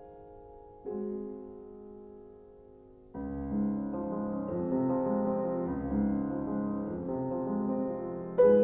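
Background piano music. A chord is struck about a second in and left to ring and fade, then fuller, louder playing comes in about three seconds in, with another strong chord near the end.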